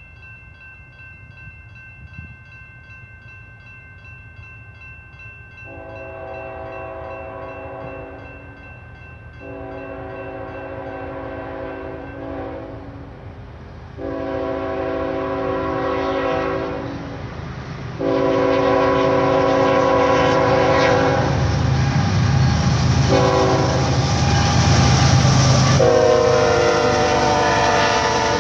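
Norfolk Southern freight locomotive's chime air horn blowing a series of long blasts, with one short blast near the end, as the train approaches. Under the horn the rumble and rail noise of the freight train rise sharply in the second half as the locomotives and cars pass close by.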